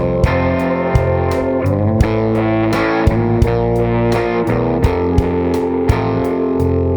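Background music: distorted electric guitar over a steady drum beat.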